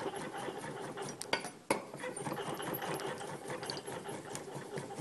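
Chef's knife rapidly slicing roasted, peeled chestnuts on a wooden cutting board: a quick run of blade taps on the board, with a couple of louder knocks about a second and a half in.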